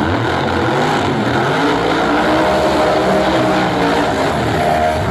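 Top Doorslammer drag cars' engines running loud at high revs, their pitch rising and falling, with more than one engine tone overlapping.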